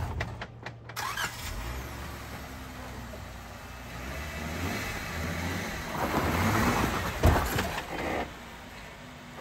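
Jeep Wrangler Rubicon engine running at low revs as it crawls over rocks in four-wheel low. It revs louder for about two seconds from six seconds in, with a sharp knock near seven seconds, then settles back.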